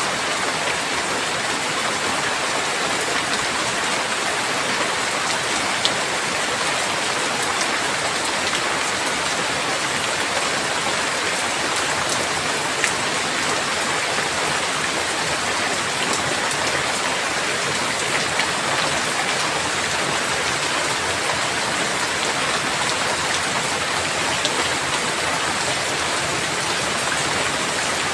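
Heavy rain falling steadily, an even hiss with a few sharper single drop ticks.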